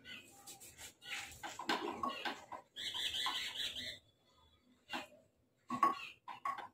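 Knife cutting through firm raw pumpkin on a ceramic plate: a run of short crunches and clicks as the blade goes through the flesh and taps the plate, a higher squeaky scrape about three seconds in, and a few separate clicks near the end.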